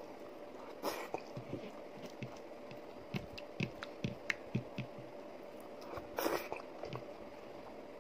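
Close-up eating sounds: fingers squishing and tearing a soft ragi mudde ball and working it through chicken soup, with irregular soft wet smacks and clicks of chewing. Two short, louder hissing noises come about a second in and around six seconds.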